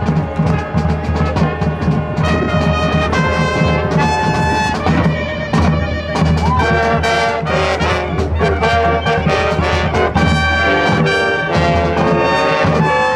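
Marching band playing loudly: trumpets, sousaphone and other brass carry the tune over a steady percussion beat.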